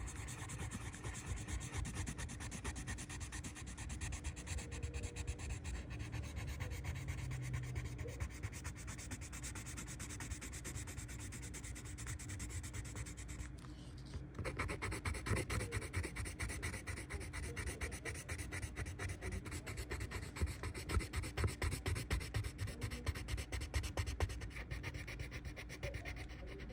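Coloured pencil shading on paper in quick back-and-forth strokes, with a short pause about halfway through before the scratching resumes a little louder.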